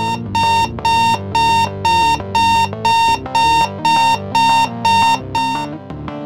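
Electronic alarm-style beeping: one high tone repeated about twice a second, twelve beeps, then stopping shortly before the end, over continuous background music.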